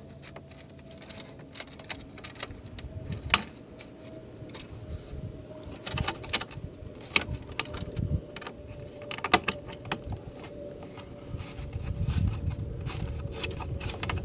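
Irregular sharp clicks and light metallic taps of small hardware being handled: a washer and bolt being fitted and tightened on a license plate relocation bracket.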